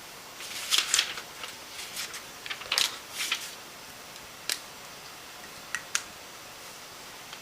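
A handful of short, sharp clicks and rustles, scattered irregularly over a steady hiss; the loudest come about a second in and near three seconds in.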